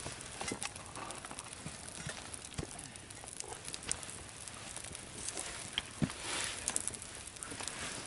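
Burning birch-log torch crackling, with irregular sharp pops over a steady low rush of flame. The loudest pop comes about six seconds in, followed by a brief swell of noise.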